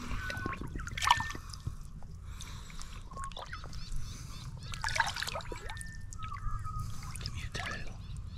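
Lake water trickling and splashing around a barramundi held at the boat's side for release, with irregular splashes about a second in, around five seconds and near the end.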